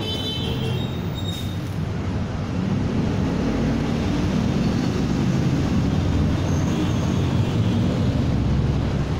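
Steady low rumble of a motor vehicle's engine, growing heavier about two and a half seconds in and holding there.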